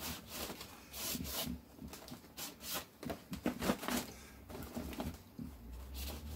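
Paper towel loaded with acrylic paint being rubbed and scrubbed across watercolor paper in a series of irregular strokes, several a second at times, texturing the paint.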